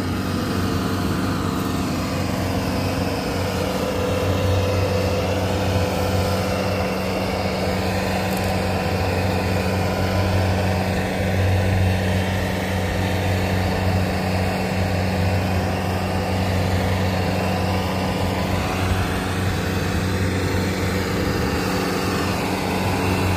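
Diesel engine of a Bobcat T190 compact track loader running steadily under load while it holds a large log up on its pallet forks, swelling in level a couple of times.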